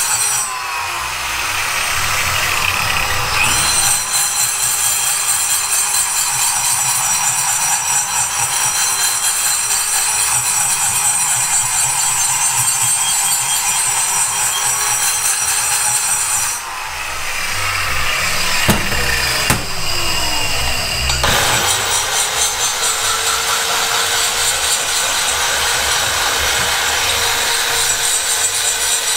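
High-speed rotary grinder with a burr cutting the ports of a Mazda 12-valve cylinder head: a steady whine over a rough cutting noise, the pitch wavering as the burr loads up. It stops and winds down about two-thirds of the way through, then runs again.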